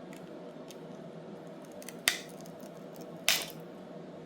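Two short, sharp scrapes of a tool prying at the glued-down battery of a smartphone, about two seconds in and again a second later, over a steady low hum.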